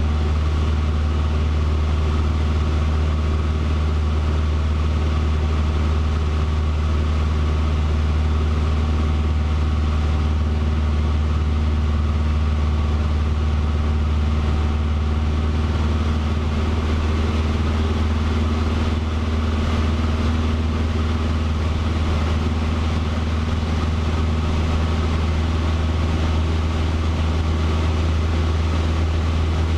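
A Cessna 150's four-cylinder Continental O-200 engine and propeller running steadily in flight, heard from inside the cockpit, with a slight shift in tone a little past halfway.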